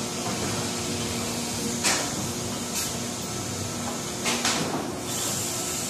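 Plastic injection molding machine running with a steady low hum, broken by several short hisses of air.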